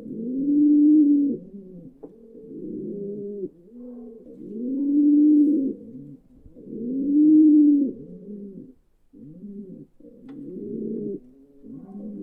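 Pigeons cooing in a pigeon coop: a steady run of low coos, each about one to two seconds long and rising then falling in pitch, following one another roughly every two seconds.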